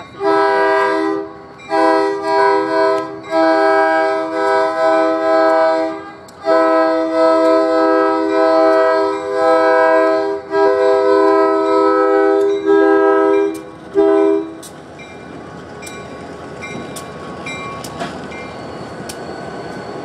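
Union Pacific freight locomotive's air horn sounding a chord of several notes in a long string of blasts, some short and some several seconds long, for about fourteen seconds. Then the train rolls past, wheels clicking over the rail joints.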